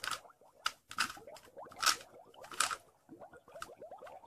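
Plastic Rubik's cube being twisted by hand: its layers clack and scrape with each turn, about six sharp clicks at uneven intervals with faint squeaky rubbing between them.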